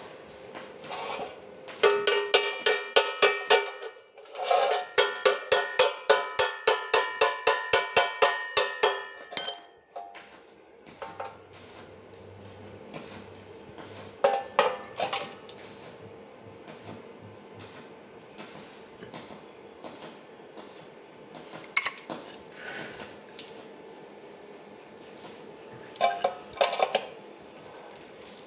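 Chipping hammer knocking slag off a freshly laid E6013 weld bead on a steel bar, the bar ringing with each blow. Two quick runs of about four strikes a second come first, then a few scattered knocks.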